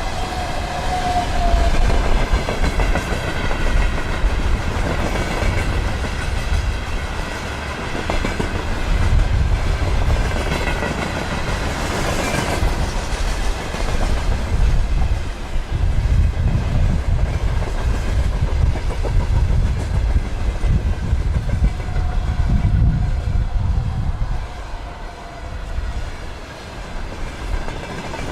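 Freight train wagons rolling past, wheels clattering over rail joints with a steady rumble, and thin high ringing tones from the wheels above it. The rumble eases briefly near the end.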